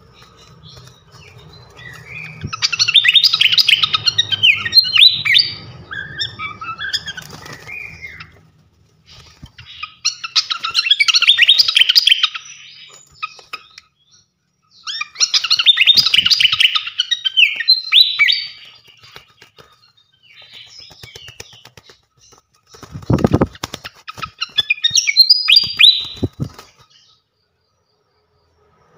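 Srikatan kipas songbird singing in four loud bursts of rapid, high chirps and trills a few seconds each, separated by short pauses; a masteran song for training caged birds. A faint low hum runs under the first burst.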